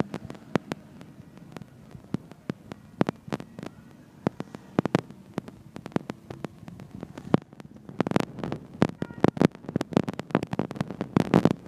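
Irregular sharp clicks over a quiet background, coming thickest about eight seconds in and again near the end.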